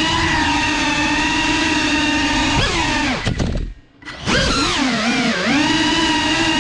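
Cinewhoop FPV drone's motors and propellers whining at a steady pitch; about three seconds in the throttle is chopped and the whine falls away almost to nothing for about a second, then spools back up with quick dips in pitch.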